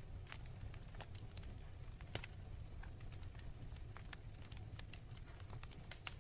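Wood fire in a fireplace crackling: scattered sharp pops over a low, steady rumble of the flames, the loudest pop about two seconds in and a pair more near the end.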